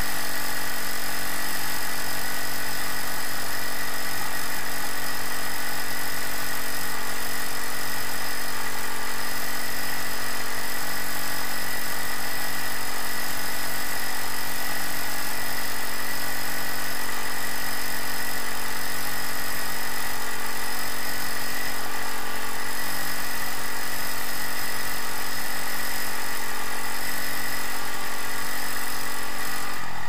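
A small engine running at a steady speed with an even drone, its lower notes dropping away right at the end.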